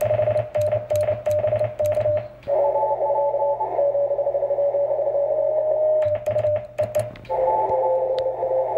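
Morse code (CW) on the 20-metre band from an HF transceiver: a single keyed tone with clicks, twice broken off by a jumble of several Morse tones at different pitches over band noise, the sound of many stations calling at once in a pile-up.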